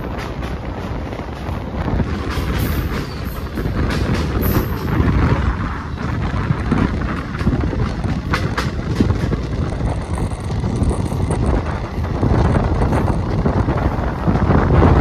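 Passenger express train running at speed, heard from aboard a coach: a steady rumble of the wheels on the rails, with scattered sharp clacks over the track.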